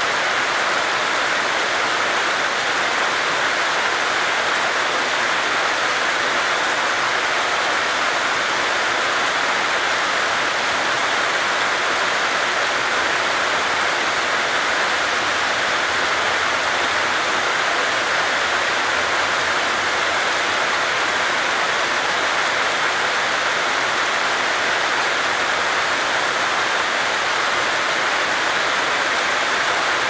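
Heavy rain pouring down steadily: a dense, even hiss of countless drops striking wet ground, unchanging throughout.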